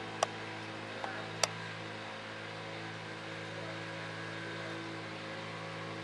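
A steady, even hum made of several fixed low tones, with two sharp clicks about a second apart near the start.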